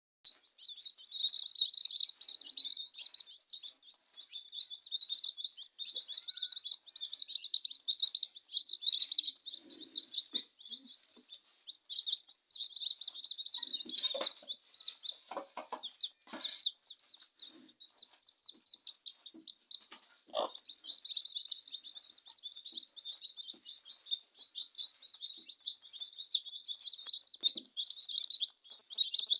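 Newly hatched chicks peeping constantly in rapid, high-pitched cheeps, with a few short knocks near the middle.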